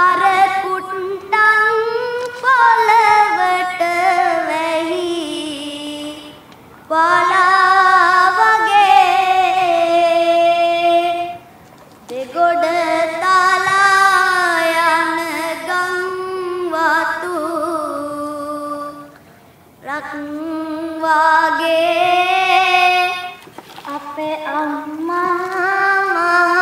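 A woman singing a slow Sinhala song in long, held phrases, with short breaks between them.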